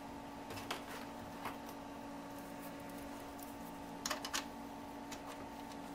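Faint clicks of a BNC cable connector being handled and pushed and twisted onto an oscilloscope's input jack, with two close clicks a little after four seconds in, over a steady faint hum.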